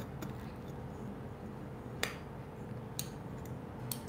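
A metal spoon clinking against small steel baking cups: a few light, sharp clinks, the loudest about halfway, over a low steady hum.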